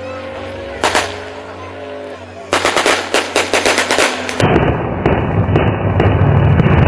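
A single shot about a second in, then a burst of rapid gunfire at about eight shots a second lasting nearly two seconds. After that, a sudden switch to the steady noise of a piston-engined WWII Yak fighter plane passing low overhead.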